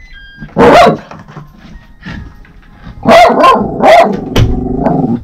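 Small mixed-breed dog barking in sharp bursts, once about a second in and again several times from about three seconds on. The barking is a sign of the dog's separation anxiety, which is showing more strongly than usual.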